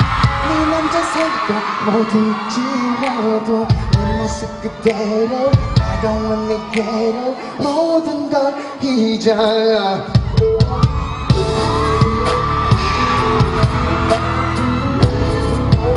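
Pop music with singing, played live at a concert. The deep bass beat drops out, comes in briefly, then returns for good about ten seconds in.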